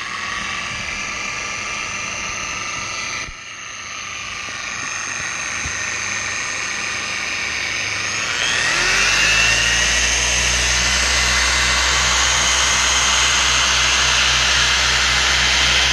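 Dual-action orbital polisher running on car paint with a steady whine. About three seconds in it drops off and winds back up. Around eight seconds it rises in pitch and gets louder as it speeds up.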